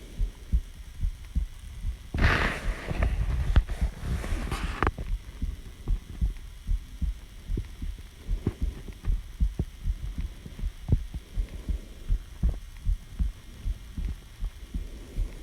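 A human heartbeat recorded close up: low, regular thumps all through. Breathing is heard over it, with a loud rush of breath from about two to five seconds in and softer breaths later.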